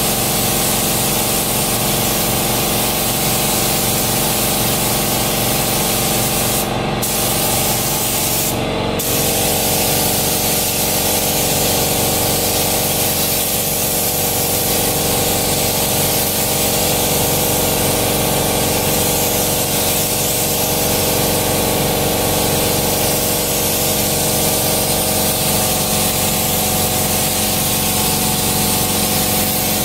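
Gravity-feed paint spray gun hissing steadily as it lays the first coat of clear coat, over a steady hum. The hiss drops out briefly twice, about seven and nine seconds in, as the trigger is let off between passes.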